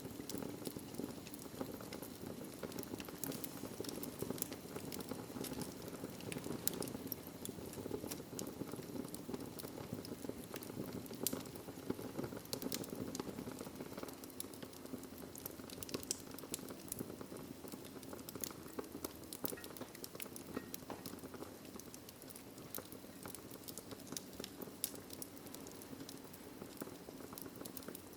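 Wood fire crackling in a fireplace: frequent sharp, irregular pops and snaps over a steady low rush of burning.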